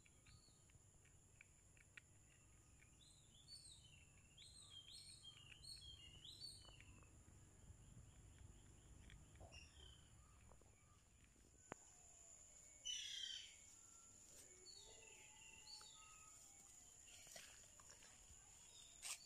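Faint outdoor ambience with small birds calling: a run of short, quick chirps over the first several seconds, then a louder call about thirteen seconds in and scattered calls after it, over a faint steady high-pitched tone.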